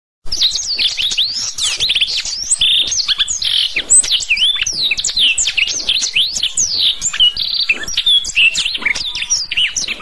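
Blackthroat (black-throated canary) singing a rapid, unbroken song of quick whistled sweeps, chips and trills, starting abruptly a moment in.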